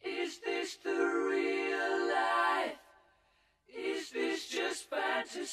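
A cappella singing as an intro jingle: two short sung notes, then a long held note, a pause of about a second, then a run of quick short notes.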